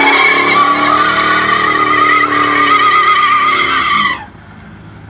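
F-body car's V8 engine held at high revs in a burnout, rear tyres squealing in a steady high wail. A little over four seconds in the revs fall away and the squeal stops, leaving the engine idling low.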